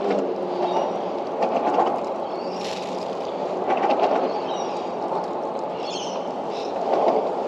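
Steady rumble of road traffic crossing the concrete road bridge overhead.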